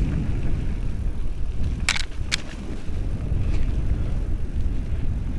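Calibre Bossnut full-suspension mountain bike riding fast along a dirt woodland trail: a steady low rumble of wind and tyres on the dirt, with a few sharp clicks and knocks from the bike about two seconds in.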